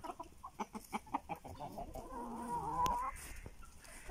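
Chickens clucking in a quick run of short calls, then one drawn-out call about two seconds in that lasts about a second.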